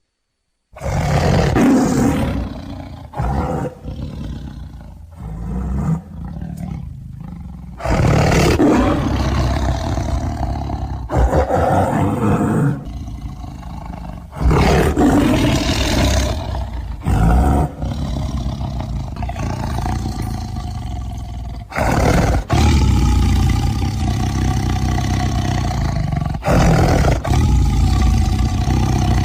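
Big cat roaring and growling in a series of loud roars that start abruptly every few seconds.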